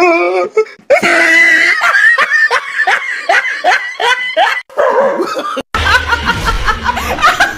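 Laughter in rapid, rhythmic ha-ha bursts, then a woman laughing loudly from about six seconds in.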